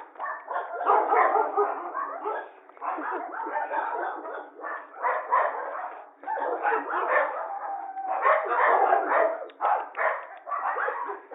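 Puppy barking over and over, in a long string of bursts with short pauses between them.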